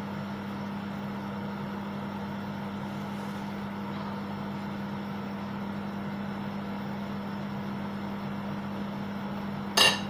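A steady low hum from a kitchen appliance runs throughout. Near the end, a metal ladle clatters down onto a ceramic plate.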